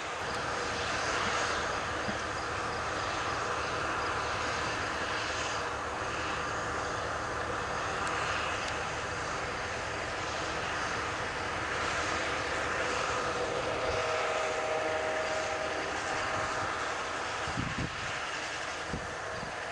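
John Deere combine running under harvest load as it cuts grain and drives past: a steady mechanical drone of engine and threshing. A faint whine comes in about two-thirds of the way through, and there are a few low thumps near the end.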